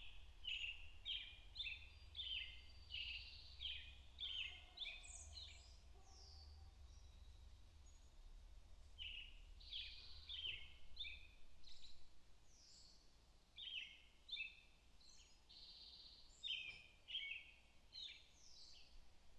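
Songbirds singing in the trees: runs of quick, high chirps, with pauses of a few seconds between runs, over a faint low rumble.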